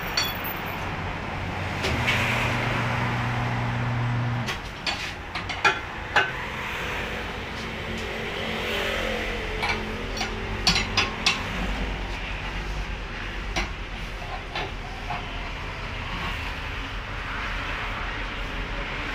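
Automatic tire changer at work: its electric turntable motor hums steadily for a couple of seconds about two seconds in, then runs again later as a lower drone. Sharp metal clinks of a steel tire iron against the rim and machine come in short clusters as the tire's lower bead is pried off the rim.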